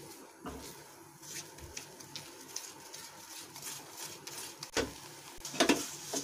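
A spatula scraping and stirring a thick milk and coconut paste in a nonstick pan as it cooks down, in scattered strokes, the loudest a little under five seconds in and again around five and a half seconds.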